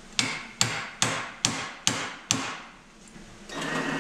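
Six quick, evenly spaced hammer taps on a bolt chucked in a drill press, each ringing briefly, knocking the bolt over to cut its runout. Near the end the drill press starts running steadily.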